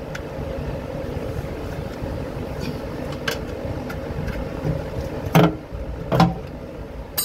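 A screwdriver prying at the oil pan's sealant seam against the engine block, giving a few sharp metal clicks and knocks, the loudest about five and a half seconds in, over a steady low background hum.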